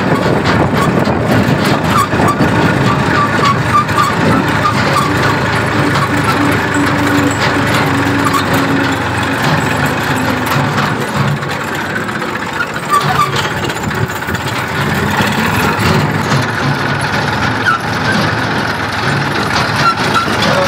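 Massey Ferguson 1035 tractor's three-cylinder diesel engine running steadily while driving, loud and close, as heard from the driver's seat just behind the bonnet.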